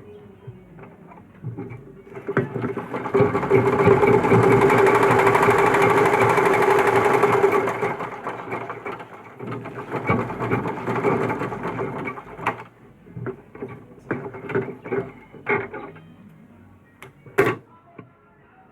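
Butterfly sewing machine stitching a test seam with its bobbin case tension just tightened. It runs fast and loud for about five seconds, then more quietly for a few seconds more, followed by scattered clicks and one sharp click near the end.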